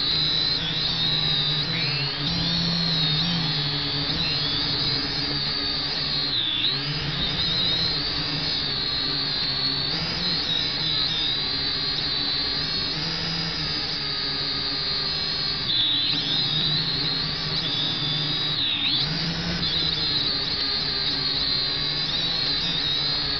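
Potensic quadcopter drone's motors and propellers whining steadily in flight, heard from its own onboard camera, with a lower hum beneath. The high whine dips briefly in pitch three times: once about a quarter of the way in and twice in the later half.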